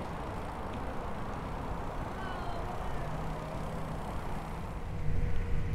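Steady rolling and wind noise from a recumbent trike moving along a paved path, heard on a camera mounted on the trike. A low steady hum joins about halfway through.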